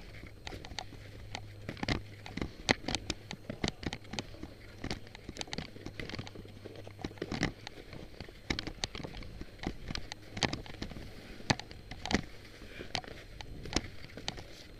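Skiing down a tracked, chopped-up snow trail: a run of irregular sharp clicks, knocks and scrapes as the gear slides and chatters over the lumpy snow. A low steady hum sits underneath for the first half.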